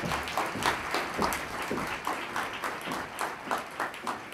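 Audience applauding, the clapping slowly thinning out toward the end.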